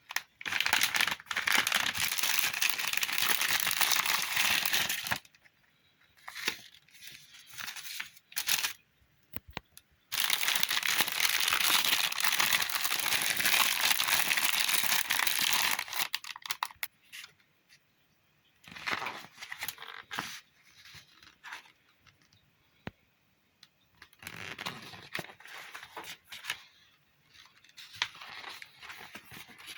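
Packaging being torn and crumpled while unwrapping a new washing machine: two long stretches of tearing, each several seconds, then shorter bursts of rustling and crinkling.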